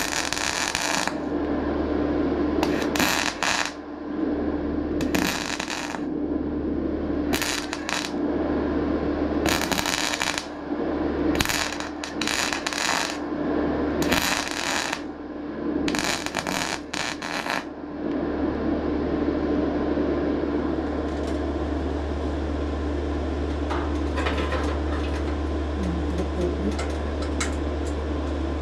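MIG welder crackling and spitting as it welds thin sheet steel on a 1955 Fordson Major nose cone, in about eight short bursts every second or two. About eighteen seconds in the arc stops, leaving a steady low hum and a few faint clicks.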